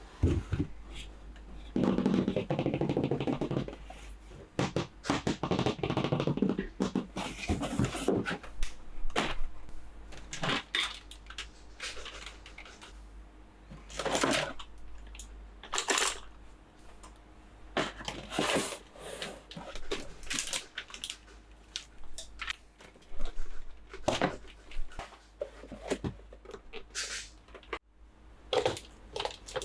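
Plastic toys and packaging being handled up close: irregular clicks, taps and rustles, with a denser stretch of rubbing and crinkling in the first few seconds.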